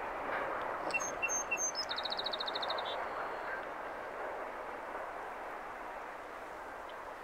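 A bird gives a few short, high chirps about a second in, then a quick high trill of about a dozen notes. These are heard over a steady rush of wind and sea.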